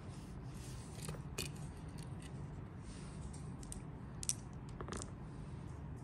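A few sharp small plastic clicks and light taps, the loudest about four seconds in, from a hand working a key-fob remote and handling remote-controlled dice on a felt table, over a steady low hum.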